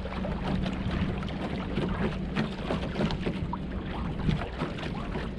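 Wind buffeting the microphone with a steady low rumble, and water lapping and splashing irregularly against the hull of a small sailboat under way.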